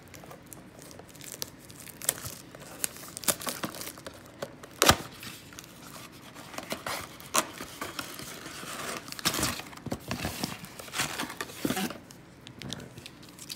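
Plastic shrink wrap and the cardboard of a trading-card box being torn open, crinkling and ripping in irregular bursts, with foil-wrapped card packs rustling as they are handled near the end. A sudden louder rip about five seconds in is the loudest sound.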